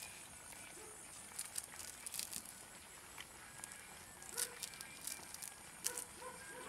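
A thin leaf crinkling and crackling as it is folded by hand, in short scattered bursts about a second and a half in, around two seconds, and again from about four to six seconds in.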